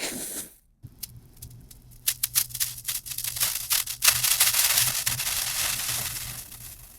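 Fireworks crackling: a string of sharp separate pops from about a second in, then a loud, dense burst of crackling about four seconds in that slowly fades away.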